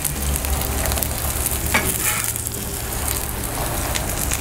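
Food sizzling on a Blackstone flat-top griddle, a steady frying hiss, with a metal spatula scraping a couple of times about two seconds in.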